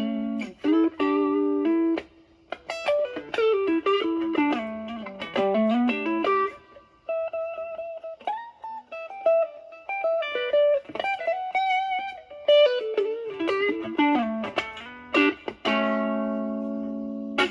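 Electric guitar (Stratocaster with alnico single-coils) through a Rat-style 'Brat' distortion pedal with an OP07 chip into a Marshall Valvestate amp, the pedal's gain at about one o'clock with the tone cleaned up. Bluesy single-note lead lines with string bends and vibrato, ending on a long held note near the end.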